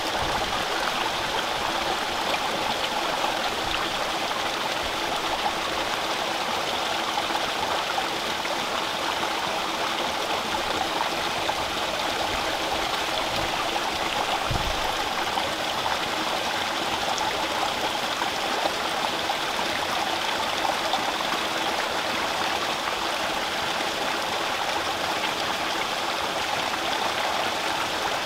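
Water from a drain falling steadily into a small pond, splashing on the surface.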